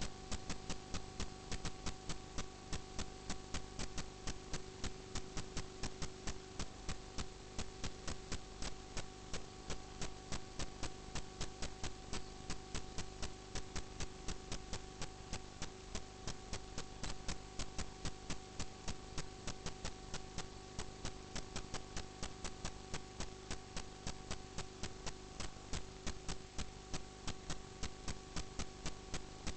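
Steady electrical hum with an even, regular ticking, about three to four ticks a second.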